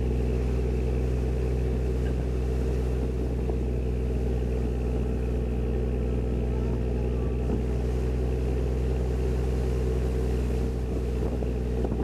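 Sightseeing boat's engine running steadily under way, a low, even drone.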